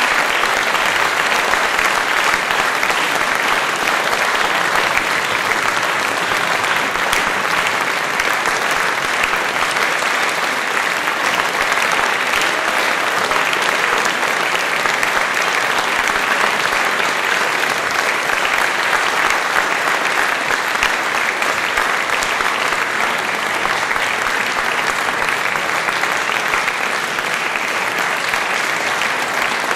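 Concert audience applauding steadily, a dense continuous patter of many hands clapping.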